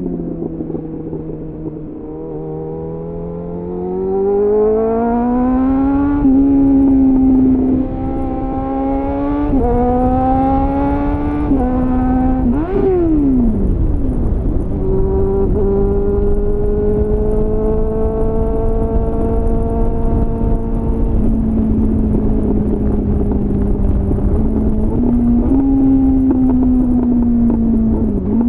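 2001 Suzuki GSF 600 Bandit's inline-four engine through an aftermarket slip-on exhaust (a copy of an SC-Project CR-T with a homemade dB-killer), heard from on the bike while riding. The engine note rises and falls repeatedly with the throttle, dipping sharply and climbing again about halfway through, then holds a steadier pull before easing off near the end, over a low wind rumble.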